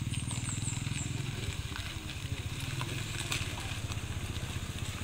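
An engine running steadily, a low, even pulsing throb.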